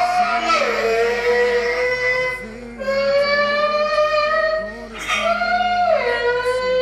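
Song: a high voice holding long notes that slide down between phrases, over a plucked guitar accompaniment.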